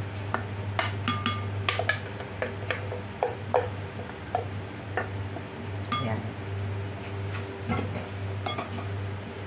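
Irregular clinks and knocks of a blender jar tapping against the rim of a glass bowl while thick batter is poured and shaken out of it. Near the end a wooden spoon stirs in the glass bowl. A steady low hum runs underneath.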